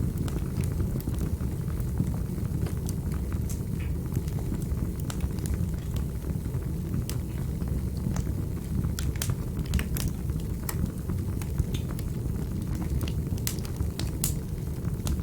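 Wood fire crackling in a fireplace: irregular sharp pops and clicks over a steady low rumble of the burning fire.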